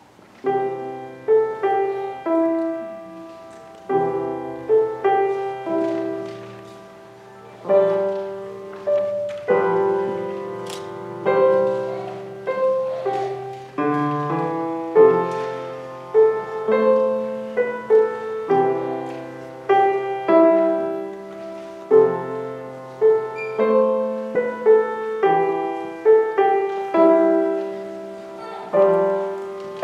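Solo grand piano playing a classical-style piece: chords and melody notes struck and left to ring and fade, over held bass notes. The playing begins just after the start, out of near quiet.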